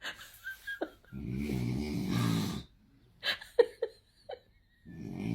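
A person snoring: two long, rattling snores, each about a second and a half, about three seconds apart. A few short sharp clicks and knocks come between them.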